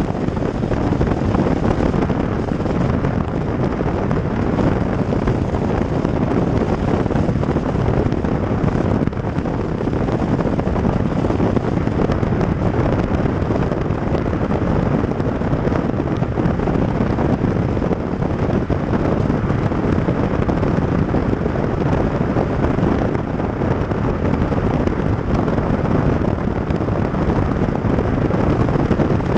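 Steady rushing noise of wind on the microphone of a camera mounted on the outside of a moving car, mixed with tyre and road noise on a wet road.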